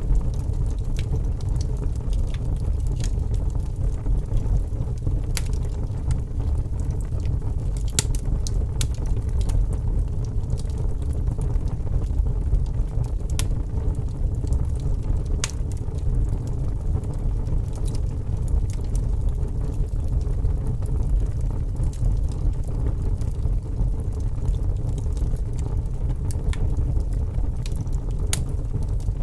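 Wood fire burning with a large flame: a steady low rumble of flame with scattered sharp crackles and pops from the burning wood.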